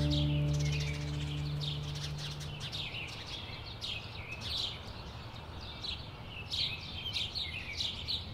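Small birds chirping: many short, quick, falling chirps in a steady chatter. The last notes of background music fade out in the first couple of seconds.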